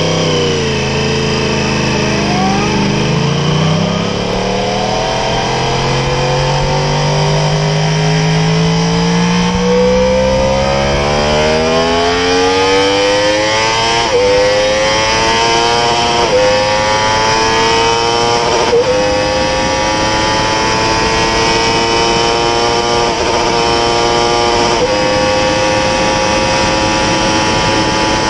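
2020 Yamaha R1's 998 cc crossplane inline-four under hard acceleration from low speed in first gear. The engine note climbs for about fourteen seconds, then several quick upshifts each cut the pitch briefly before it climbs again, and it holds nearly steady near the end, with wind rush.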